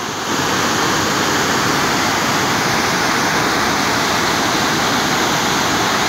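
Waterfall in flood after heavy rain: a strong, fast torrent of white water gushing out of a stone arch and over rocks, a steady, loud rush.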